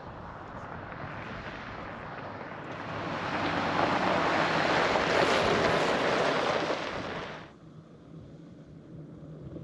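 Jeep Gladiator driving past on a gravel road, its tyre and engine noise swelling as it nears and passes, then cutting off abruptly about seven and a half seconds in. A fainter, steady low engine hum follows.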